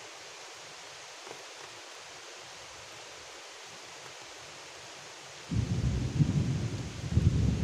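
Steady hiss of rain falling on the river. A little over five seconds in, a sudden loud, deep, uneven rumble sets in and keeps going.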